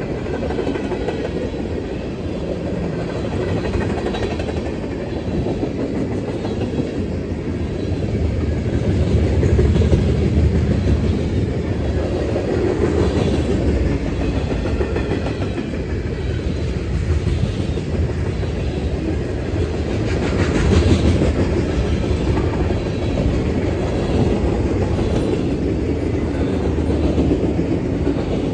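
Freight cars of a Norfolk Southern train rolling past: steel wheels rumbling and clacking over the rail joints, a steady loud rumble that swells twice.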